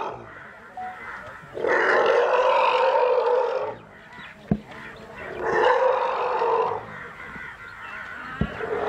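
Asian elephant calf calling loudly twice, each call lasting one and a half to two seconds, while being led on a rope against its will. Two short sharp knocks are also heard, one between the calls and one near the end.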